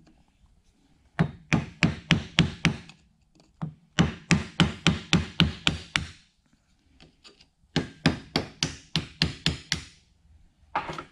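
Hammer blows on a 1997 Jeep Wrangler TJ front driveshaft, beating out its rear universal joint. They come in three quick runs of about five strikes a second, with a short fourth run near the end.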